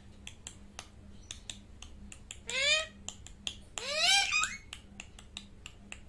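Two loud rising squawks from a rose-ringed parakeet, about two and a half and four seconds in, the second one breaking downward at its end. Under them runs a steady series of sharp clicks, about three a second.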